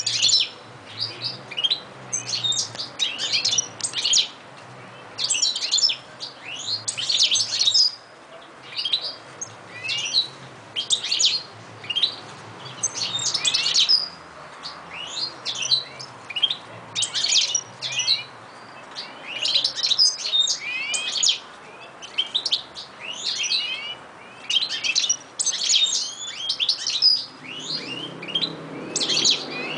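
Caged European goldfinches singing: quick, high twittering song phrases in bursts every second or two. A low rumble rises near the end.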